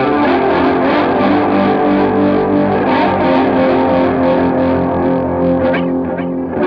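Distorted electric guitar holding chords through a TC Electronic Vibraclone Rotary, a rotary-speaker (Leslie-type) effect pedal, the sound pulsing about three times a second. The level dips briefly near the end.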